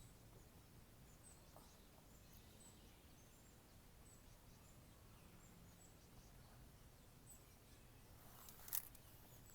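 Near silence: faint outdoor ambience with small high chirps every second or so, and a brief rustle near the end.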